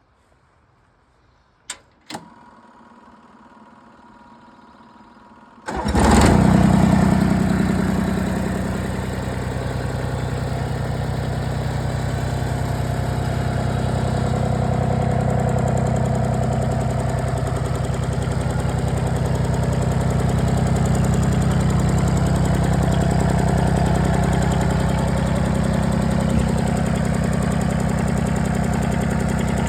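John Deere 332 garden tractor's three-cylinder diesel engine being started: two clicks, a faint hum for a few seconds, then about six seconds in the engine catches and settles into a steady idle.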